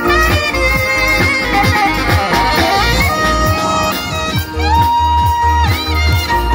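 Live band music: an alto saxophone plays sustained, bending melody notes over a steady dance beat of drum kit, hand percussion and a pulsing bass line.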